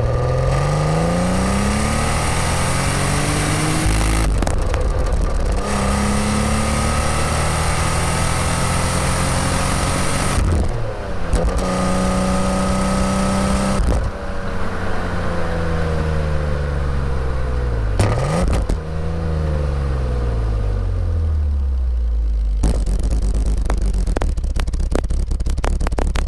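Rotary-valve BMW E36 328is inline-six on the move, recorded close to the exhaust: revs climb with a couple of breaks for gear changes, hold high, then wind down steadily with a brief blip partway, settling to a low drone near the end.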